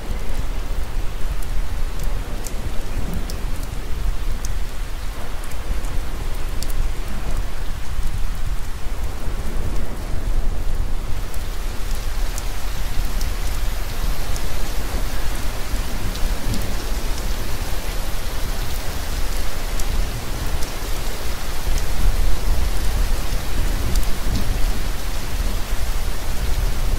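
Steady rain falling, with a deep rumble underneath and scattered drop ticks; the hiss of the rain grows brighter about eleven seconds in.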